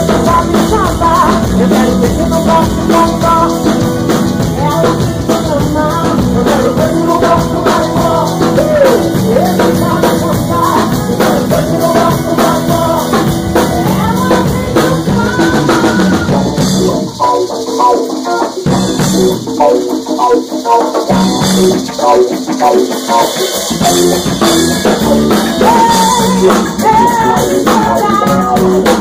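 Live band playing in a rehearsal room: drum kit, electric bass, guitar and congas, with singing. Past the middle the bass and kick drop out for several seconds, leaving the lighter parts, then the full band comes back in.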